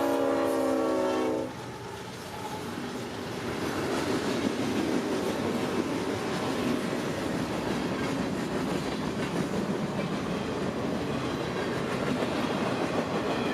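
Freight locomotive's horn sounding a chord of several notes, cutting off about a second and a half in. Then the freight train passes with a steady rumble of locomotives and cars on the rails, building over the next couple of seconds.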